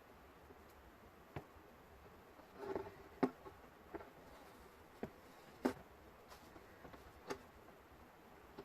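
Masking being peeled off a clear polycarbonate RC car body, with faint, irregular small clicks and crackles of the thin plastic, the loudest a little after three seconds in and near the middle.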